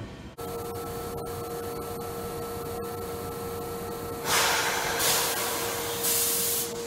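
A Seibu 2000 series electric train standing at the platform: a steady electrical hum with a clear tone, then three bursts of compressed-air hiss a little after four seconds in, the loudest about a second long each.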